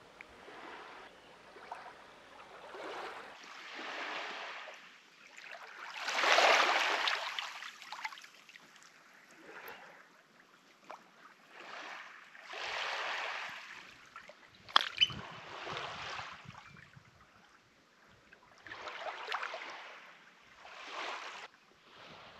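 Small waves lapping on the shore, each wash swelling and fading a few seconds apart. One sharp click near the middle.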